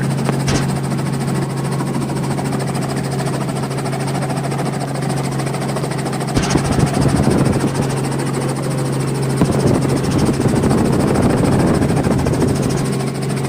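Helicopter engine and rotor running with a steady hum. About six seconds in there is a click, then the sound grows louder and rougher as power comes up for lift-off.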